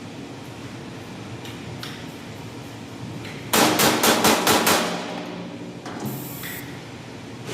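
A hammer striking metal: about seven quick, evenly spaced blows, each ringing briefly, about halfway through.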